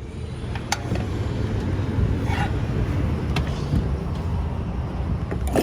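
Vehicle on the move: a steady low road rumble with scattered clicks and rattles.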